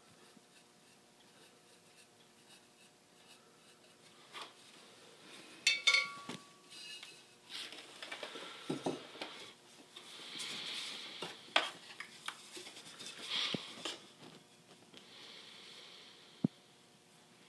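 Handling sounds of pottery work: a short ringing ceramic clink about six seconds in, scattered light knocks and clicks, and soft scratchy rubbing of a fine paintbrush on the unglazed pot.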